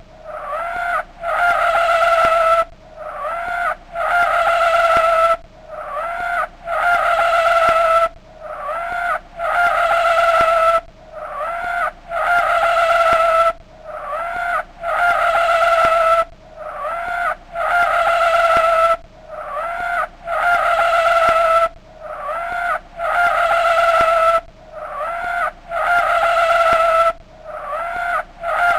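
Chevrolet S-10 4x4 mud truck stuck deep in a bog, its tyres spun in repeated bursts about every two and a half to three seconds. Each burst rises quickly and then holds as a high, steady whine.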